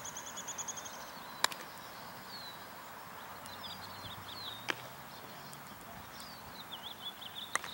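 Small birds chirping on and off with short falling calls and trills. There is a sharp knock about a second and a half in, the loudest sound, and fainter ones near the middle and the end.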